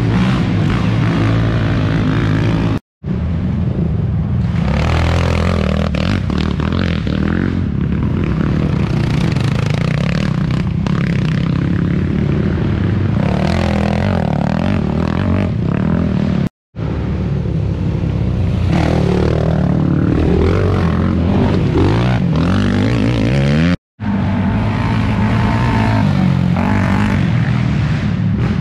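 Racing quad (ATV) engines running hard, revving up and falling back. The sound cuts out abruptly three times.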